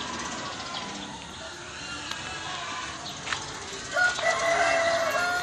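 A rooster crowing once: a long call starting about four seconds in.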